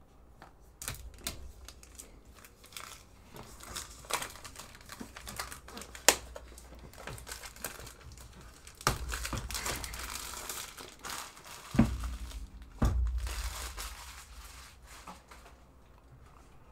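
Clear plastic wrapping crinkling and rustling as it is handled and pulled off a cardboard keyboard box, with many small crackles. Two dull thumps come about two-thirds of the way through.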